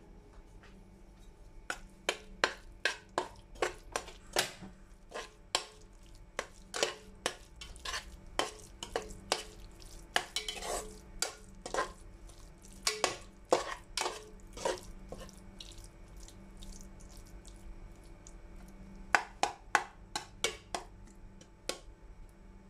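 A slotted metal spoon scraping and knocking against the inside of a metal pressure cooker as spice powders are stirred into cooked onion and tomato. Quick, irregular clinks and scrapes, pausing for a few seconds near the end before a last short cluster.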